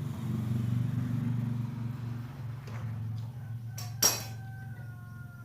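Rice milling machinery runs with a steady low hum, with a few light metallic clicks and one sharp metal clank about four seconds in that leaves a short ringing tone.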